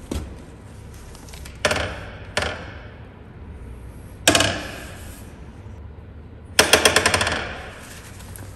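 Power impact wrench hammering in short bursts of rapid rattling blows. There are two brief bursts, then one about four seconds in, then a longer, louder burst near the end.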